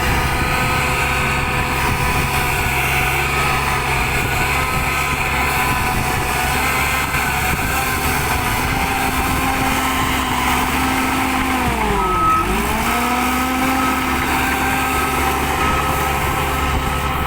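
Shantui DH13J bulldozer running steadily at work, its diesel engine and drive giving a steady whine. About twelve seconds in, the pitch dips sharply and recovers within about a second.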